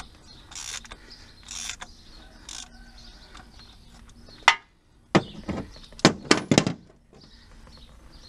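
Ratchet with a 24 mm socket working the oil filter loose under the engine: short ratchet clicks about once a second, then a sharp crack, then a quick run of loud metallic knocks and clanks.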